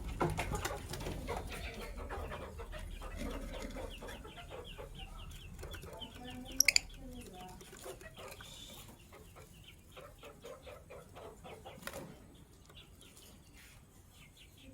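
Lovebirds chattering: a stream of quick, scratchy chirps and clicks, with three sharp clicks in fast succession about halfway through. It grows fainter near the end.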